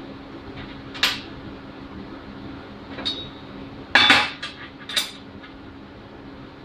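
Steel tube and small flat-bar pieces clanking against a steel welding table as they are handled and set in place. There is a single clank about a second in, another near three seconds, then a quick cluster of clanks from about four to five seconds, the loudest at four. A steady low hum sits underneath.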